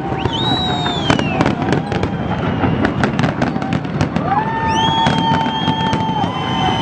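Large fireworks display going off in a dense run of bangs and crackles over a continuous rumble. Whistling tones glide through near the start, and from about four seconds in, long whistles rise and then hold steady.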